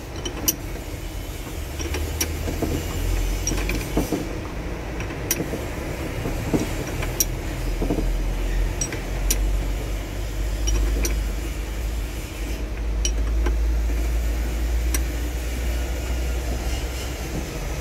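Scattered sharp metallic clicks and clinks of a spanner working on nuts at a truck's steering column, over a steady low rumble.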